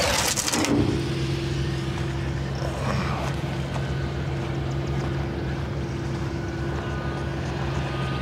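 Utility cart's engine idling steadily with a low, even hum, after a brief burst of noise in the first second.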